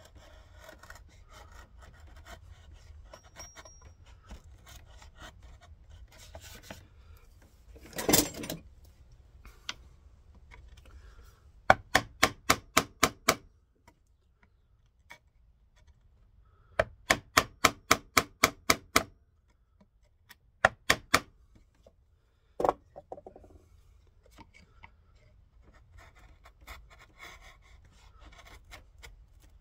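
A bench chisel pared by hand across softwood, the blade shaving and scraping the wood in soft strokes. Midway come several quick runs of sharp knocks, about four a second, and later one single knock.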